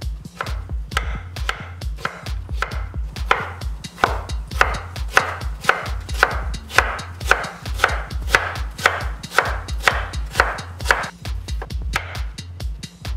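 Kitchen knife chopping raw potato on a wooden cutting board, in a steady run of about three cuts a second.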